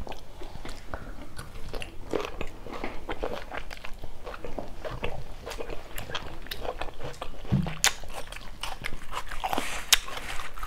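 Close-miked chewing and biting of grilled beef, bell pepper and onion skewers and spaghetti, with many small irregular crunches and wet mouth clicks.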